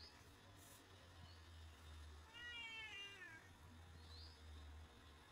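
A cat meowing once, a single meow that falls in pitch and lasts about a second, a little before halfway through.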